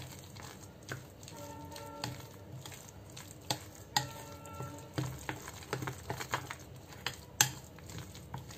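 Metal spoon stirring a thick moong dal and semolina batter in a glass bowl: a wet, gritty scraping with irregular clinks of the spoon against the glass, the sharpest about seven seconds in.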